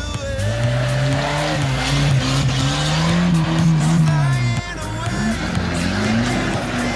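Off-road 4x4 engines revving hard, rising and falling, as the tyres spin in mud and loose dirt. First a Suzuki Vitara climbs out of a muddy pit; then, after a break about four and a half seconds in, a Land Rover Discovery claws up a dirt mound.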